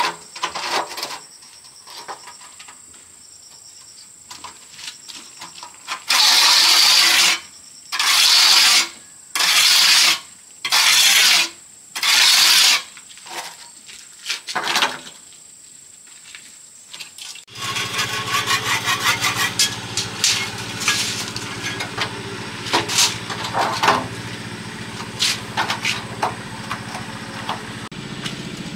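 Five loud hissing strokes, each about a second long, with light tapping before them. Then, from about two-thirds of the way in, a small engine runs steadily with clicks and taps over it.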